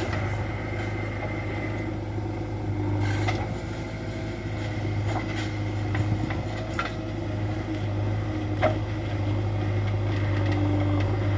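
Heavy diesel machinery engine running steadily, with a few short sharp knocks scattered through the middle.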